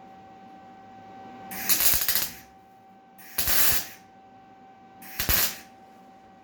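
Three short welding bursts, each about half a second of crackling hiss, as thin steel wires are tacked into a decorative pattern. A faint steady hum runs underneath.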